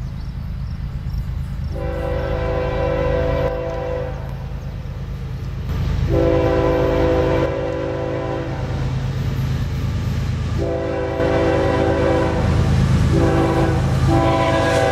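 An approaching CSX diesel locomotive sounding its multi-tone air horn in the grade-crossing pattern: long, long, short, then a long blast still sounding at the end. Under it the locomotive's diesel engine rumbles steadily, growing louder as the train nears.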